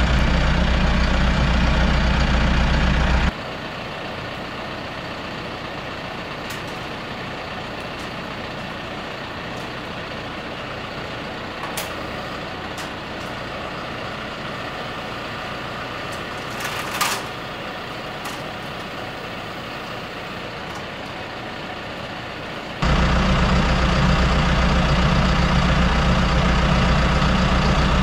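Tractor's diesel engine running steadily, loud and close from inside the cab. For a long middle stretch it is quieter and hissier, with a few faint clicks.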